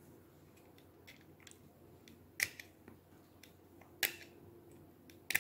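Faint scratching and small sharp clicks of a tool scraping the enamel insulation off a wound toroid's copper wire leads, with two louder clicks about two and a half and four seconds in.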